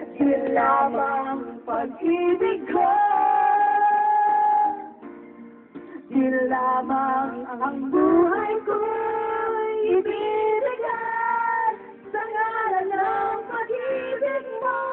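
Music with a woman singing, holding long notes, with plucked-string accompaniment.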